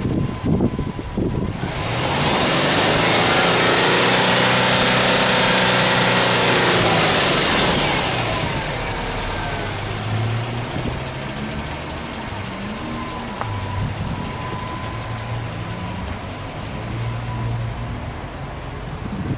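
Subaru Impreza WRX STI's turbocharged flat-four (boxer) engine being revved with the car parked. One long rev climbs about two seconds in, holds for a few seconds and falls back around eight seconds in. The engine then settles to idle, with a few small changes in speed.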